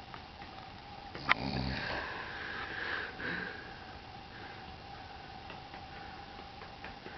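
A sleeping person snoring: a sharp click about a second in, then one long, rough snoring breath of about two seconds, with a faint steady hum underneath.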